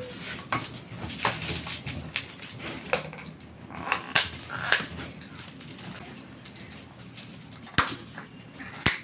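Eating sounds: chewing and wet mouth smacks with scattered sharp clicks, the two loudest near the end.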